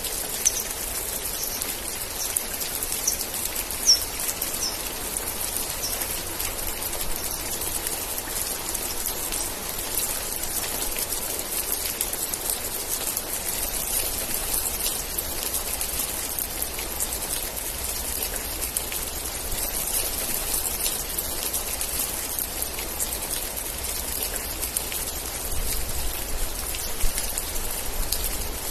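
Steady rain falling on a surface, a dense hiss of drops with individual drop taps standing out. A few short high chirps come in the first several seconds.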